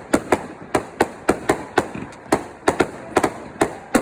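Fireworks going off: a rapid, irregular run of sharp bangs, about three to four a second, each with a short echoing tail.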